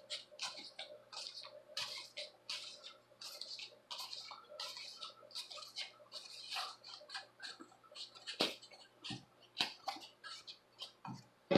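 EVA foam squeaking and creaking in quick, irregular bursts as hands bend and press the heat-softened piece into a curve, with a few knocks, the loudest near the end.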